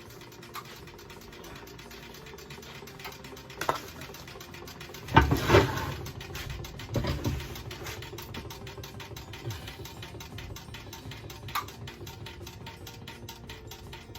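Spring-wound centrifugal jewellery casting machine released to cast molten gold: a click, then a loud clunk about five seconds in as the arm lets go, followed by rapid, even mechanical ticking as the arm spins.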